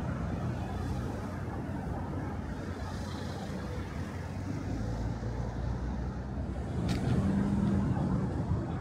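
City road traffic: car engines and tyre noise as a steady low rumble, with one vehicle's engine hum coming up louder about seven seconds in and a brief sharp click just before it.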